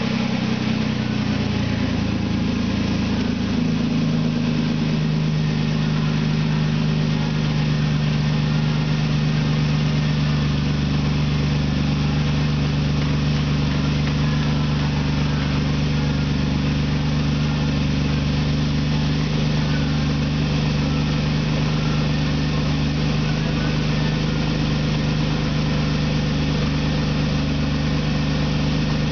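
2002 Jeep Liberty Sport engine idling steadily with the hood open, heard from over the engine bay; its note shifts slightly in the first few seconds, then holds steady.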